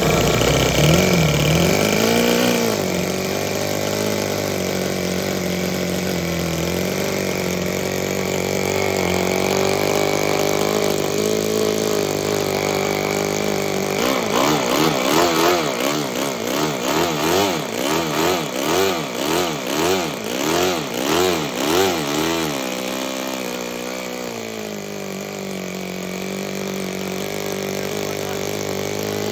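Toyan Otto FS-L200 two-cylinder four-stroke nitro model engine, freshly started and running. About halfway through, its revs rise and fall over and over, more than once a second, for several seconds, then settle to a steadier, lower run. It is a new, barely run engine that still needs its carburettor tuned.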